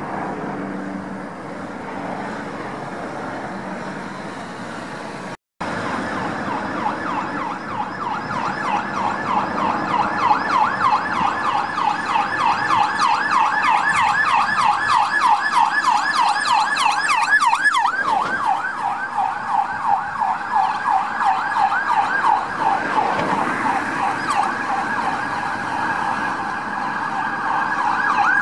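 Emergency response vehicle's siren on a fast yelp, about four rising sweeps a second, growing louder as it approaches through traffic. It follows a few seconds of road traffic noise.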